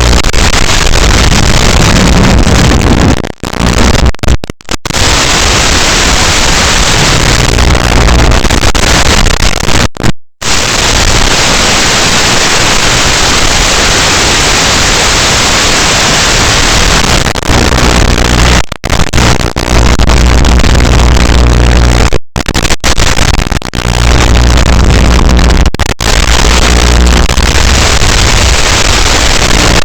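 FPV drone in flight: loud, harsh rushing noise of the propellers and air, with a low steady hum at times, cut by several sudden brief dropouts.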